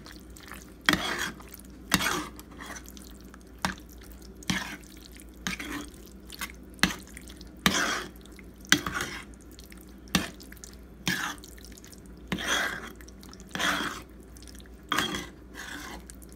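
Metal spoon stirring thick meat sauce in a cast-iron skillet: irregular wet squelching scrapes and sharp knocks of the spoon against the pan, about one a second.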